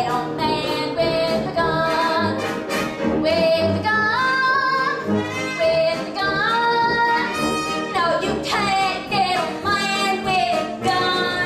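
A woman singing a show tune live on stage, with a pit band or orchestra accompanying her on a steady beat.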